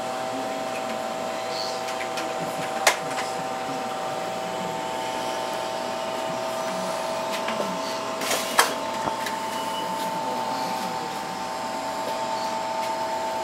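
Steady mechanical hum with several held tones. A sharp click comes about three seconds in and two more near the middle, and after the last one one of the tones steps slightly higher.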